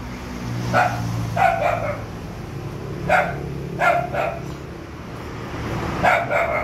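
A dog barking about seven times, mostly in quick pairs, over the steady low hum of motorbike engines on the road.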